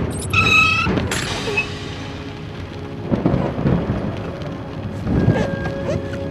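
Thunder rumbling in several rolls over steady rain. A brief high tone sounds just after the start, and music comes in near the end.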